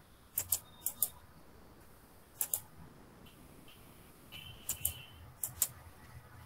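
Computer mouse clicking: five quick pairs of sharp clicks spread over a few seconds.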